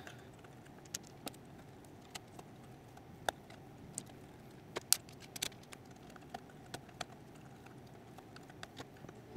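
Faint, irregular small clicks and light taps of M3 screws and a hand tool as a panel is bolted down onto the frame extrusions, a couple of clicks louder than the rest.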